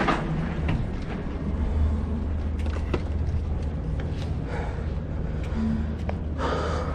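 Steady low rumble from a mountain bike rolling over concrete with wind on an action-camera microphone, with scattered clicks and rattles from the bike. A louder rustling patch comes near the end.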